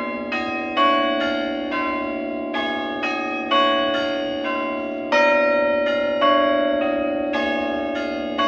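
Church tower bells rung one after another in an even rhythm of about two strokes a second, each bell ringing on under the next.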